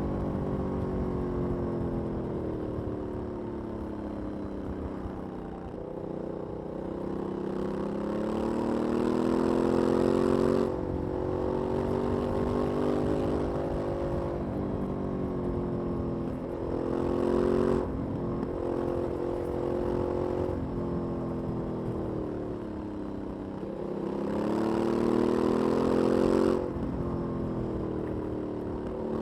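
Aprilia 900 V-twin motorcycle on its stock exhaust, ridden on the road. The revs climb and fall repeatedly and cut back suddenly three times: about a third of the way in, just past halfway, and near the end.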